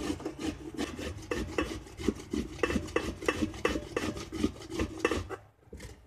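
Young zucchini grated by hand on the large holes of a metal box grater: quick rhythmic rasping strokes, about three a second, with a short pause near the end.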